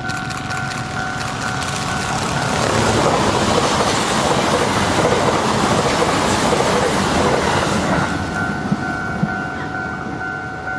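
JR East E655 series electric train passing at speed: the rush of wheels on rail swells over a couple of seconds, stays loud for about five seconds as the cars go by, then fades. A pulsing ringing tone is heard before the train arrives and again after it has passed.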